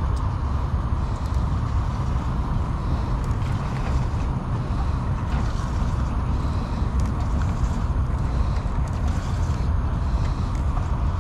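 Wind buffeting a body-worn camera's microphone by the sea: a steady low rumble with no distinct events.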